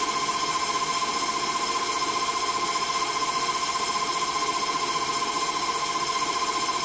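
CNC-controlled metal lathe running steadily through an automatic turning cycle, its spindle turning a four-jaw chuck and steel shaft at about 900 RPM. A steady high whine over an even hiss, with no change in pace.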